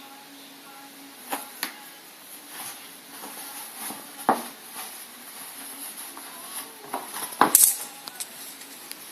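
Cairn terrier playing with a toy: a few scattered knocks and taps over a faint steady hum, the loudest a quick cluster of knocks about three-quarters of the way through.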